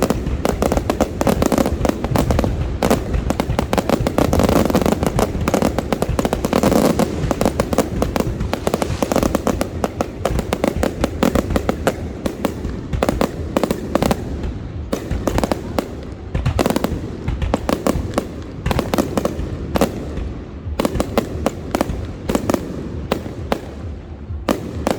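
Fireworks display going off in a dense barrage of bangs and crackles. The barrage thins out about halfway through into more separate bangs.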